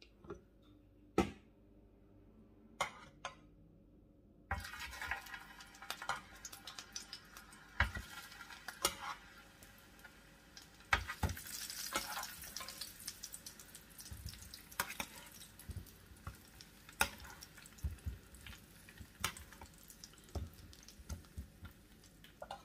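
Kitchen utensils at work: a saucepan lid lifted and a metal spoon clinking and knocking against the pan and a roasting tin as parboiled potatoes are lifted out and set down in the tin, in scattered clicks. A faint steady hiss comes in about four seconds in.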